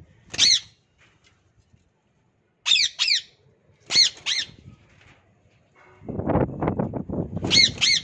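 Indian ringneck parakeets giving short, shrill squawks, one alone and then mostly in quick pairs. From about six seconds in, a parrot flaps its wings in flight.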